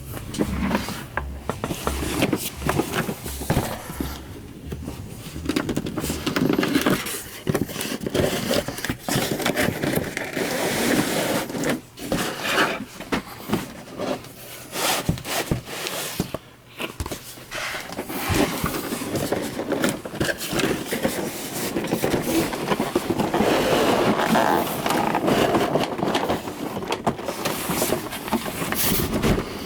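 Cardboard toy packaging being opened and handled, with continuous scraping, sliding and rustling of cardboard and plastic and scattered clicks and knocks.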